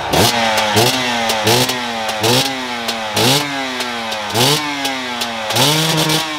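Off-road motorcycle engine revved in repeated short blips, about one a second, each climbing sharply in pitch and sinking back, while the bike is stuck against a tree on a steep muddy climb.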